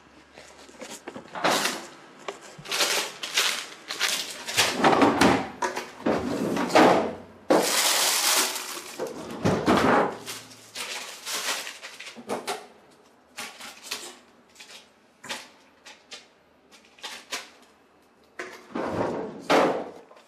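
Kitchen work: an irregular run of knocks and clatters from doors, drawers and things being handled and set down on a counter, with a longer noisy stretch of about a second and a half around eight seconds in.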